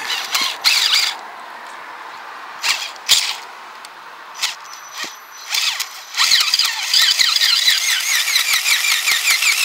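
Metal squeaking from the Kyosho Blizzard's drive chain and sprockets as they are worked by hand to seat the chain that came off. There are a few short squeaks at first, then about six seconds in a fast, rapidly repeating run of high squeaks begins.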